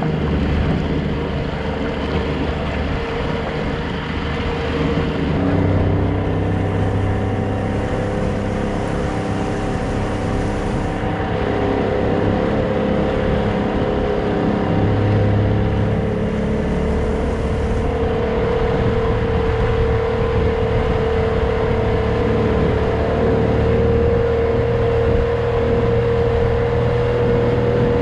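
Outboard motor of a small boat running steadily under way, a constant engine hum with the rush of water and wind. About five seconds in the tone of the engine shifts a little, then holds steady.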